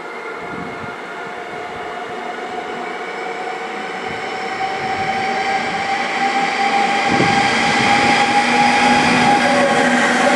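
Two electric locomotives coupled together approach and pass close by along the platform, getting steadily louder. The rolling noise carries several steady whining tones from the locomotives.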